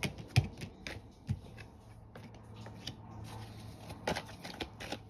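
A deck of tarot cards shuffled by hand: cards flicking and tapping against each other, with a couple of sharper taps in the first second and a half and a lull in the middle before the clicking picks up again.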